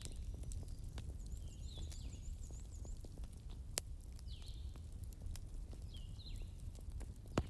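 Wood fire crackling: frequent small snaps, with louder pops a little before four seconds in and near the end, over a low steady rumble.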